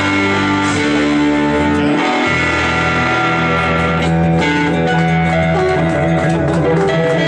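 Live electric guitars playing a rock tune, with sustained lead notes over a lower guitar or bass line.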